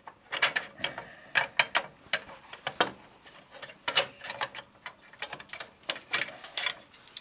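Steel parts of a John Deere seat suspension frame clicking and clinking as they are shifted and fitted by hand: a string of irregular light knocks, about a dozen, with no steady rhythm.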